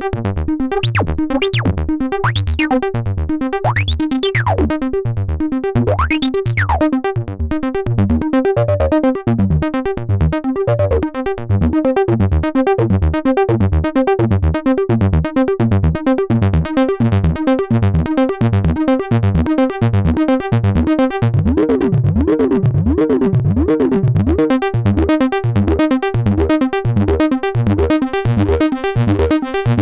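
Behringer System 100 analog synthesizer playing a repeating acid bassline: short, evenly spaced bass notes with a resonant filter sweeping up and down, the notes coming faster later on.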